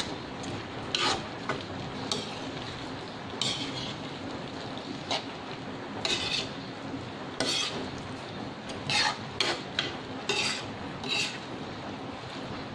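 Metal spoon stirring and scraping sautéed cabbage, carrots and potatoes around a metal wok, irregular scrapes and clinks over a steady low sizzle. The vegetables are frying on a low flame as the cabbage softens.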